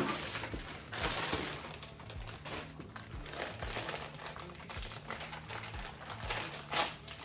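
Plastic packaging of a new tool set being opened and handled: crinkling rustles with many small irregular clicks.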